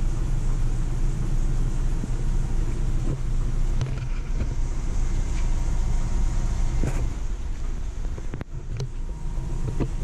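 Steady low droning rumble with a hum, joined by a few faint clicks near the end.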